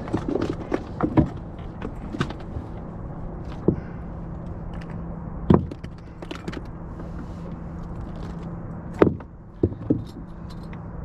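Steady hum of a boat motor running at trolling speed, with scattered knocks and thunks of gear being handled in the boat. The loudest knocks come about five and a half seconds in and again around nine to ten seconds in.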